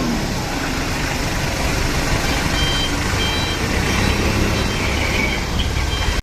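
A truck engine running steadily, a dense rumbling noise that cuts off suddenly at the end.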